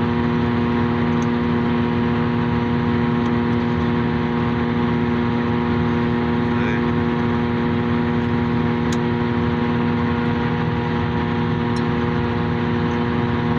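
Forage harvester running steadily, its engine and knife drum turning at a constant speed with an even hum while the shear bar is set against the knives.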